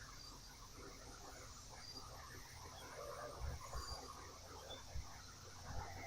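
Faint buzzing of honeybees around an open hive, with a few soft low thumps.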